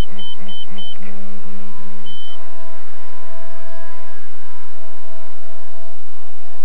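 Radio-control transmitter beeping, the alarm of a transmitter left switched on: short high beeps about four a second stop about a second in, and one longer beep follows about two seconds in. A faint steady whine runs underneath from a small electric RC helicopter flying.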